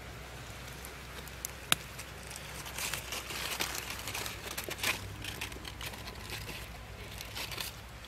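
Dry leaves and straw of a ground nest crackling and rustling as a gloved hand moves among the eggs, with a single sharp click just under two seconds in.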